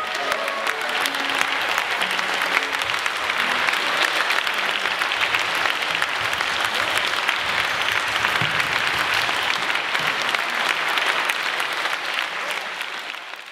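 Concert audience applauding, dense steady clapping that fades out near the end.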